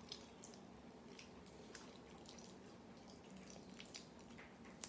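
Faint, scattered wet clicks and small pops of homemade clear slime being handled, with one sharper click near the end.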